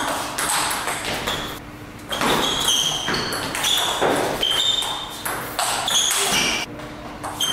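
Table tennis rally: the ball clicking back and forth off the bats and the table in a steady run of hits, each with a short, high ring.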